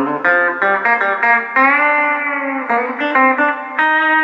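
Electric guitar played through an Orange Crush 35 combo amp fitted with a newly installed Jensen MOD10-50 10-inch speaker, on its first test after the swap. A quick run of picked single notes, then one note bent up and held for about a second, then more picked notes.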